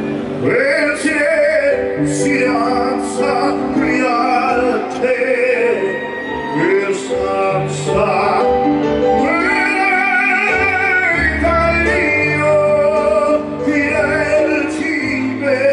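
Live pop-funk band playing: a lead singer's voice with strong vibrato over bass notes, keyboards and cymbal strokes.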